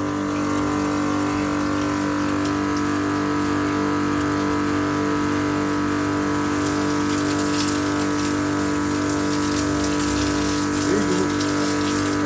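High-pressure drain-cleaning machine running steadily with an even motor-pump hum while water rushes through the kitchen drain pipe as it is flushed. The water noise gets brighter and hissier from about halfway.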